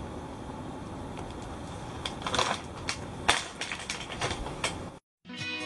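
Handling noise: a few scattered clicks and crackles over a steady low hiss, then a short drop to silence and guitar music starting near the end.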